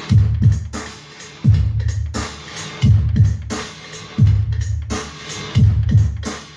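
Electronic dance beat with a booming drum-machine bass drum that drops in pitch, plus crisp cymbal and snare hits, in a phrase that repeats about every second and a half.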